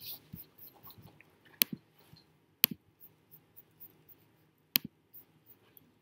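Close handling noise and light rustling from hands on the recording device, with small ticks and three sharp clicks as it is handled.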